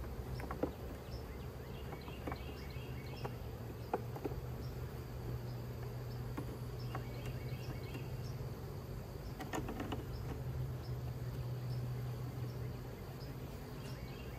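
Honeybees buzzing steadily around an open hive, a constant low hum. A few light wooden clicks and knocks, the clearest near the start, about four seconds in and near the middle, as the frames are nudged into place with a frame-spacer tool.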